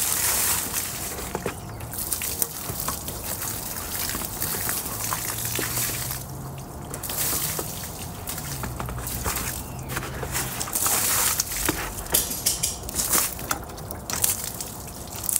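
Water poured from a bucket splashing against a pickup truck's side panels and running off onto the ground. It surges and eases over several pours, rinsing iron remover off the paint.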